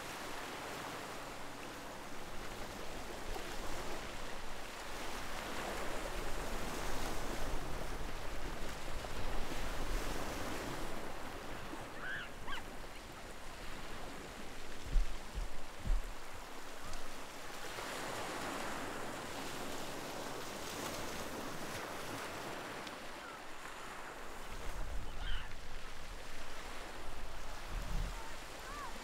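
Ocean surf: waves breaking and washing in, the rush of water swelling and fading every several seconds.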